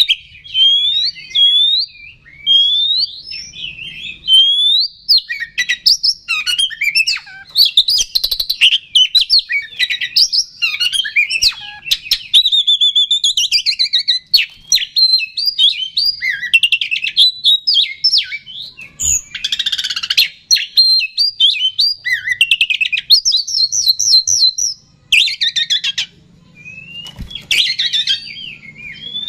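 Oriental magpie-robin (kacer) singing a long, varied song of rising and falling whistled notes, rapid trills and chatter, with a harsh rasping burst about two-thirds of the way through. It is the excited, aggressive song ('emosi', 'gacor') that keepers play to provoke other magpie-robins.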